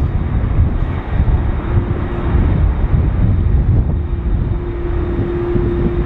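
Jet engines of an Emirates Boeing 777 climbing away at go-around thrust after an aborted landing, a steady distant rumble. Gusty wind rumbles on the microphone over it.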